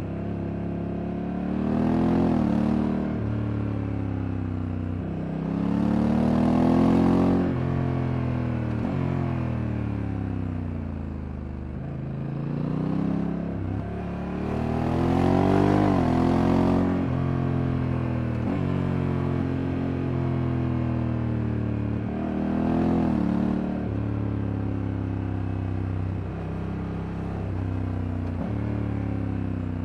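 Honda Africa Twin Adventure Sports 2024's parallel-twin engine pulling hard four times and easing off between pulls. The pitch rises with each acceleration, and the DCT automatic gearbox's shifts show as sudden steps in engine pitch.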